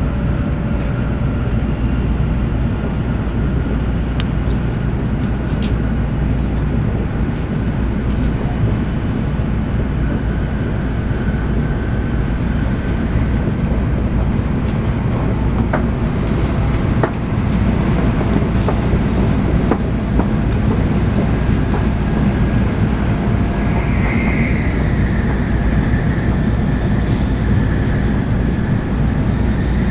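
Shinkansen bullet train running at speed, heard from inside the passenger cabin: a steady low rumble with faint whining tones in it, getting slightly louder a little past halfway through.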